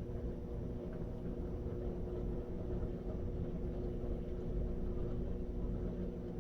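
Electrolux LT13B top-load washing machine running mid-cycle: a steady motor hum over a low rumble.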